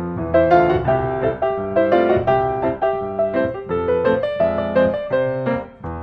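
Piano music: a steady stream of struck notes, melody over low bass notes.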